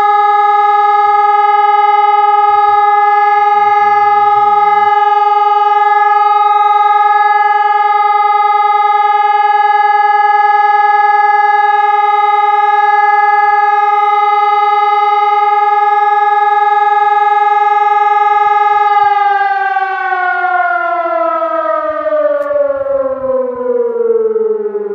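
Civil defence warning siren sounding a loud, steady tone during a test alarm, then about 19 seconds in starting to wind down, its pitch falling steadily.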